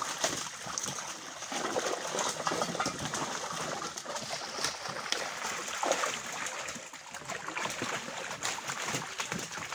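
Water splashing and sloshing in many short, irregular splashes as live fish thrash in a crowded net held in shallow river water and are lifted out by hand.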